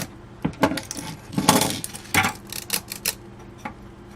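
Irregular metal clicks and clinks, with a longer rattling scrape about a second and a half in, from the gears and metal parts of a radio control box's internal mechanism being handled.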